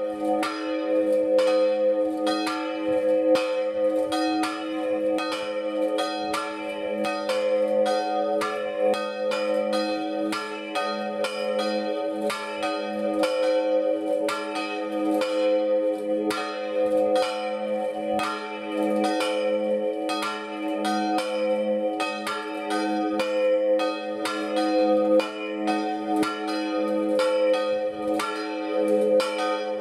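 Two small church bells, cast by the Marinelli foundry of Agnone, swinging full circle in a distesa peal. Their clanging strokes come fast and overlap over a continuous ringing hum. One of them, the second bell, has a large crack that spoils its tone.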